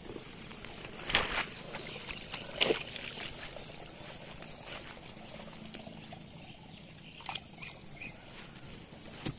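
Footsteps rustling through grass, with two louder thuds about one and three seconds in, over a steady high-pitched hum.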